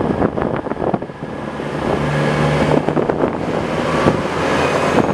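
Comeng electric suburban train coming into a station platform, its wheels and traction equipment running in a steady noise that grows louder from about a second in as it nears.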